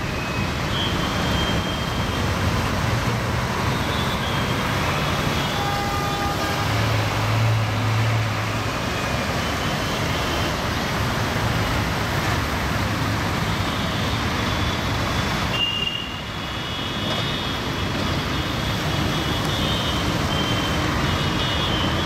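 Multi-axle Scania coach's diesel engine pulling away and picking up speed, its low engine note strongest about seven to nine seconds in, over steady city traffic noise on a wet road, with a short horn toot about six seconds in.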